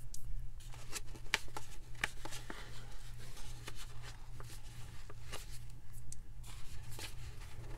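Scattered light clicks and paper handling as the stitching threads down the middle of a composition notebook are cut and its sheets worked loose, over a steady low hum.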